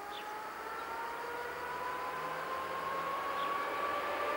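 ATR 220 diesel multiple unit approaching, growing steadily louder, with a whine that slowly rises in pitch.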